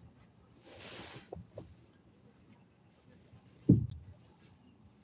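Inside a car: a short hiss about a second in, then one loud, dull thump a little over halfway through.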